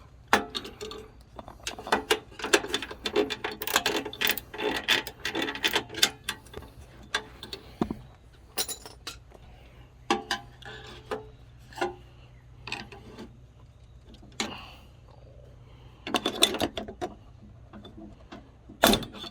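Metal tool clicking and clinking against the bolts and sheet-metal shroud of a snowblower as a bolt is loosened. Dense clicks for the first several seconds, then scattered knocks, a short cluster near the end and one sharp knock just before the end.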